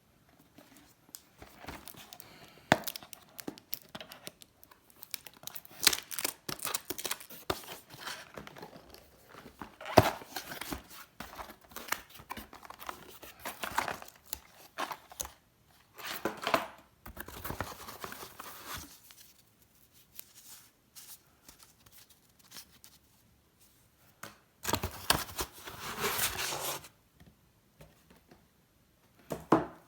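A CPU cooler's retail packaging being unboxed by hand: irregular tearing, crinkling plastic and handled cardboard, with scattered clicks and knocks. Longer stretches of tearing come about halfway through and again near the end.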